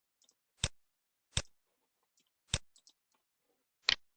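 Computer mouse button clicking: four sharp, unevenly spaced clicks with a few fainter clicks between them, as lines are selected and trimmed in CAD software.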